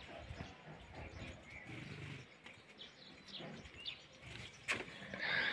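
Faint birds chirping, then, about four and a half seconds in, a single sharp clack as the metal sliding bolt of a wooden door is drawn back.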